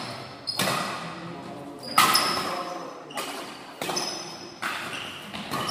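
Badminton rally: rackets striking the shuttlecock back and forth, about six sharp smacks a second or so apart, each echoing in the hall.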